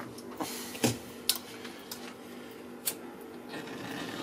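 A few short, sharp clicks and knocks from a whole duck and tools being handled on a stainless steel work table, over a steady low hum. A faint hiss builds near the end.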